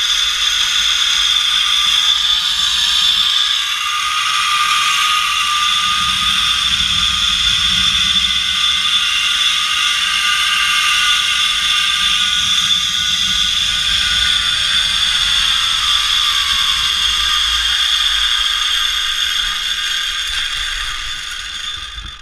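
Zip-line trolley's pulley wheels running along the steel cable: a loud, steady whirring whine. It rises in pitch over the first few seconds as the rider speeds up, falls over the last several seconds as the trolley slows, and fades near the end on arrival at the landing platform.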